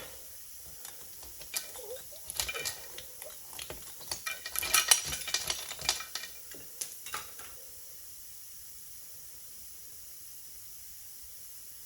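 Lead wheel weights being scraped and pried off a steel wheel: irregular metallic clicks and scrapes for about seven seconds, then only a faint steady hiss.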